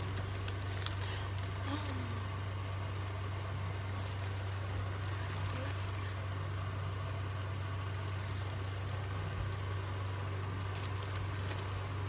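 A steady low hum with a few faint clicks over it.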